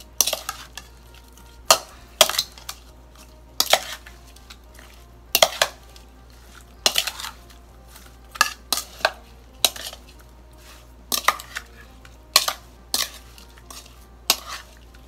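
Stainless-steel spoon scraping and clinking against a bowl as it stirs chunks of striped catfish with curry paste, in irregular strokes about once a second.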